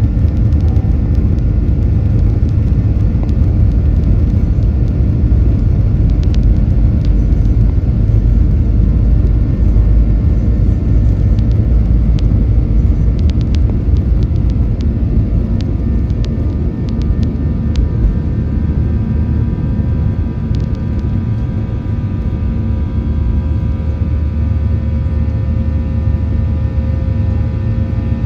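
Cabin noise of a Qantas Boeing 737-800 with CFM56 turbofans: a loud, steady rumble with a held engine hum on top. A few faint clicks come through past the first quarter.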